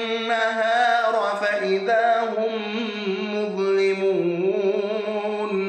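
A man reciting the Quran in melodic tajweed style, holding one long ornamented vowel whose pitch wavers and turns, with no break, until it stops near the end.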